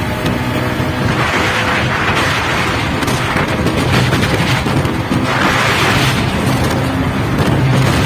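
Bajaj Pulsar 220F's single-cylinder engine running as the bike is ridden at speed, its note fairly steady, with wind buffeting the microphone in gusts.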